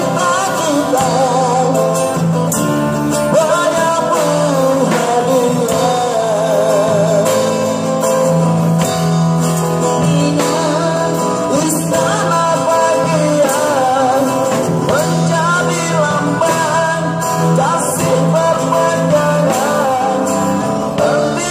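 A live street band playing a Malay pop song through a small PA, with amplified male and female vocals taking turns over a drum kit with cymbals, guitar and a steady bass line.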